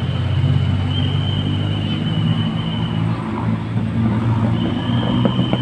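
Bus engine running with a steady low rumble, and a thin high whine over it that drops out for about a second and a half past the middle.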